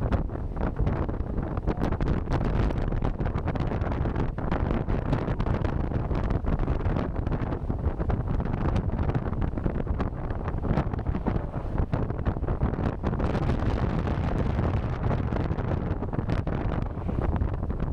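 Hard wind buffeting the microphone of a moving motorcycle, a steady low rumble shot through with crackling gusts.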